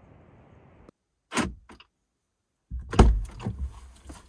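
A Jeep door being opened, heard from inside the vehicle: two sharp latch clicks about a second and a half in, then a run of thumps and rattles as the door swings open and gear is handled, loudest about three seconds in.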